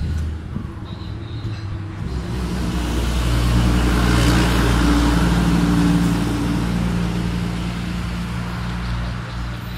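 A motor vehicle's engine passing close by, growing louder to a peak in the middle and then fading away.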